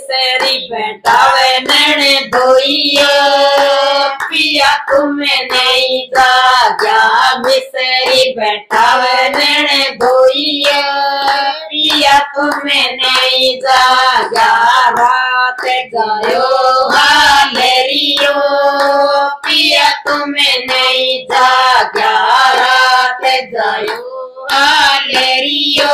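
Women singing a Haryanvi jachha geet, a folk song for a childbirth, together in unison, keeping time with steady hand claps.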